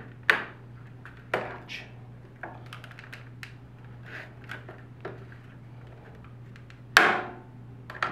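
Flathead screwdriver prying at the small white plastic clips of an M600-series SMART Board's metal rail: irregular sharp clicks and short scrapes, the loudest about seven seconds in.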